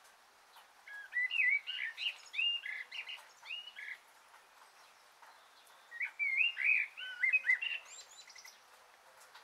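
A songbird singing two short phrases of quick chirps and up-and-down whistles, the first about a second in and the second around six seconds in.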